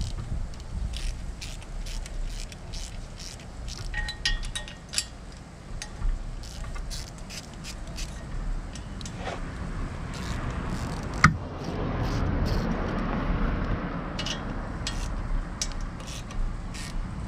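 Hand tools working on exhaust manifold bolts and nuts: a run of short sharp clicks with a few metallic clinks about four seconds in and one loud clack about eleven seconds in. A steady rushing noise comes up from about ten seconds in.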